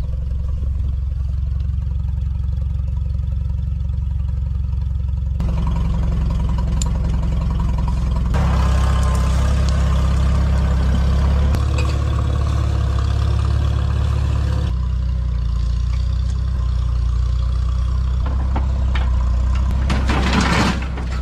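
Farmall tractor engine running steadily, its speed stepping up a few seconds in and settling back down about two-thirds of the way through.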